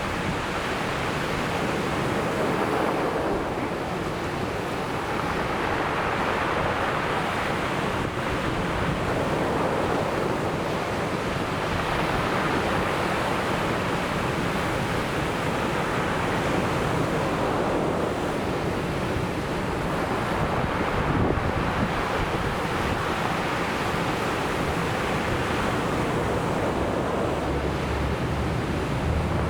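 Ocean surf washing ashore, an unbroken rush of waves that swells and eases every few seconds, with some wind on the microphone.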